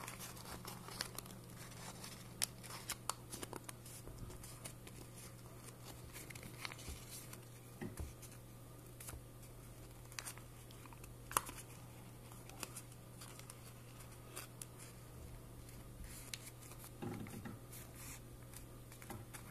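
Origami paper being handled and creased by hand, giving scattered soft crinkles and sharp little clicks over a steady low hum.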